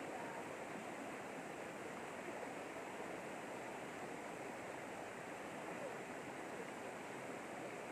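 Shallow river flowing over rocks and small rapids: a steady, even rushing of water that does not change.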